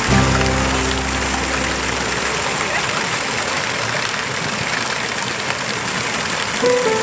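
Water jets of a dancing floor fountain splashing and hissing onto the wet pavement. A held low note of music fades out over the first couple of seconds, and music starts again near the end.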